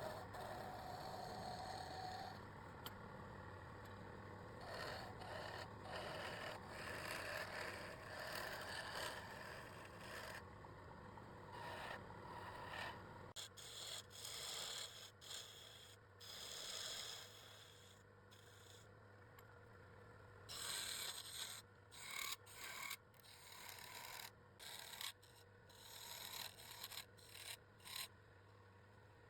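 Irregular scraping and rubbing strokes, fairly continuous at first and then coming in short separate strokes with pauses in the second half, over a faint steady hum.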